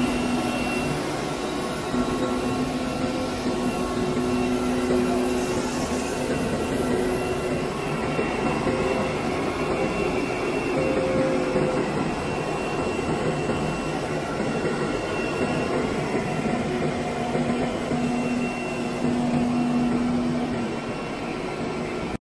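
Machinery of a PE plastic pipe extrusion line running: a steady mechanical hum and whir, with faint tones that fade in and out.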